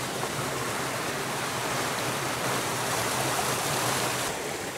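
Small mountain creek rushing over rocks and little cascades: a steady rush of water, its hiss dropping a little near the end.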